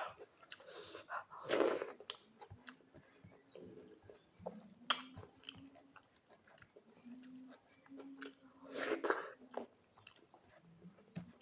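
Close-up chewing and mouth sounds of a person eating rice with soft vegetable dishes: wet smacks and small clicks, with louder bursts about a second and a half in and again near nine seconds.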